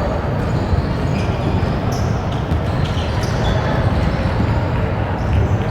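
Basketball game sounds: a ball bouncing on a court and scattered sharp knocks over a steady, dense background din.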